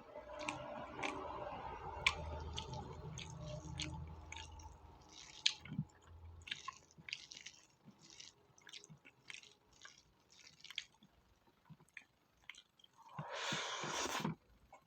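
Close-up wet chewing and mouth smacks of someone eating spicy pork fat, many short squishy clicks through the stretch. There is one louder, noisier sound near the end.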